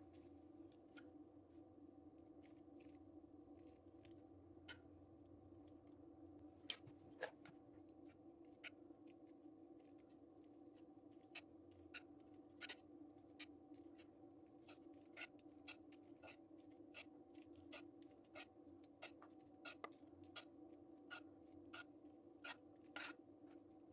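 Faint, scattered light ticks and clicks of a crumbly dough topping being sprinkled by hand from a wooden bowl onto cookies on a parchment-lined baking tray, two slightly louder clicks about seven seconds in, over a steady low hum.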